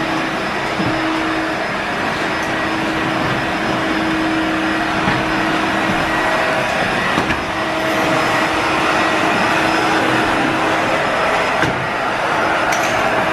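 Steady rushing whir of an electric motor-driven machine moving air, with a faint hum that drops in and out.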